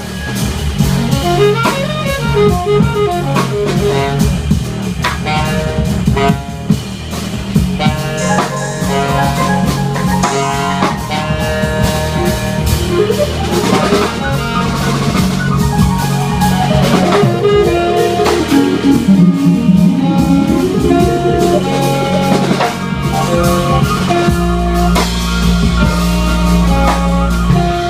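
Small jazz combo playing live: a saxophone melody over keyboard and a drum kit. Near the end a deep low note is held under the band.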